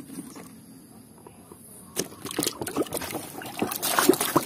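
Hand sloshing and swishing through a basin of muddy, soapy water, starting with a splash about two seconds in and growing busier and louder toward the end; before that only a faint low background.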